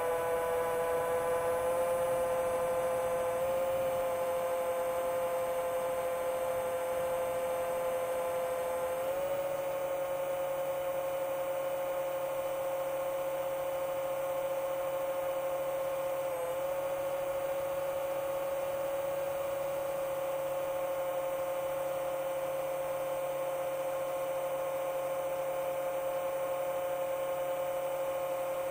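Chimera 7 long-range FPV quadcopter's motors and propellers running at a steady cruise: an even, pitched hum that steps up slightly in pitch about nine seconds in and dips for a moment around sixteen seconds.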